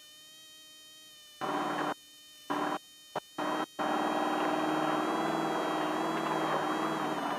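Off-road race car's engine drone, a steady pitched hum with a high whine, heard through the in-car intercom. It cuts in and out abruptly several times in the first few seconds, then holds steady from about four seconds in.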